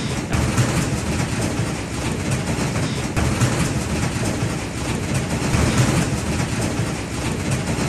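Hail and rain pelting down in a steady, dense roar, with many small impacts ticking through it.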